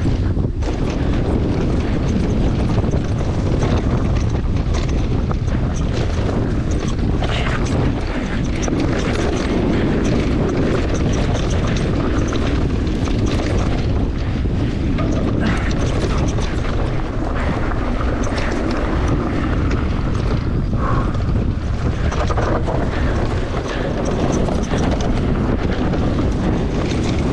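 Wind buffeting the microphone and tyres rumbling over a dirt trail as a mountain bike rides downhill, with scattered brief knocks and rattles from the bike over rough ground.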